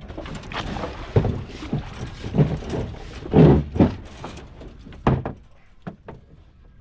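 Floodwater splashing and sloshing in irregular surges as wooden poles are pulled through it, with a couple of sharp knocks late on.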